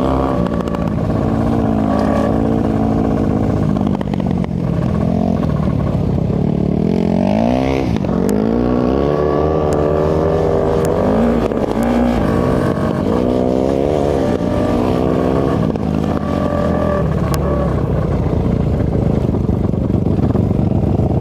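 450cc four-stroke single-cylinder off-road engine running and being revved, its pitch rising and falling with the throttle, with a deep drop and climb in revs about eight seconds in.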